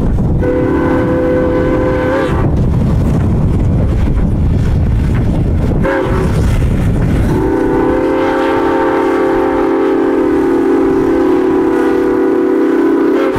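Norfolk & Western 475's Southern Pacific six-chime steam whistle blowing: a blast of about two seconds near the start, a very short toot around the middle, then a long held blast to the end, over the low rumble of the approaching locomotive and train.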